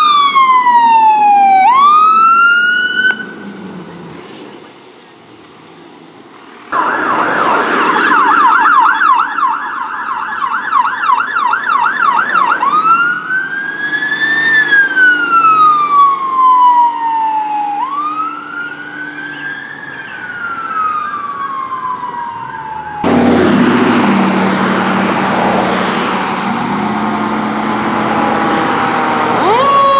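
Electronic emergency-vehicle sirens on responding fire apparatus, heard in several edited passes. A wail sweeps down and back up at the start. A fast yelp runs from about 7 to 12 seconds, then a slow rising and falling wail follows. About 23 seconds in comes a louder, noisier stretch with low steady tones, and a new siren sweeps up near the end.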